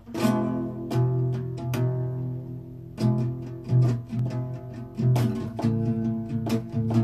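Instrumental guitar intro to a song: plucked notes and chords over low bass notes, each note struck sharply and left to ring. It begins suddenly out of near-quiet.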